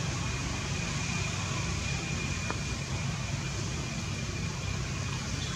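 Steady outdoor background noise: a low rumble with hiss above it and a thin, high steady tone that fades away near the end.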